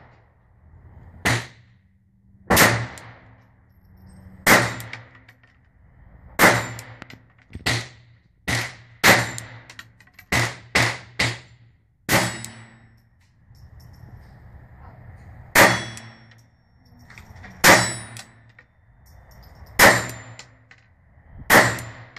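Ruger LCP II .22 LR pistol firing about fourteen single shots at an uneven pace, with a quick run of three around the middle, many followed by the ring of a steel target being hit. The pistol is cycling mixed .22 ammunition without malfunction.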